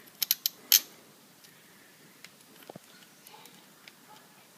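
Four or five sharp clicks in the first second, then a few faint ticks: a bolt and ground-wire terminal being handled and fitted by hand on an outboard motor's power pack.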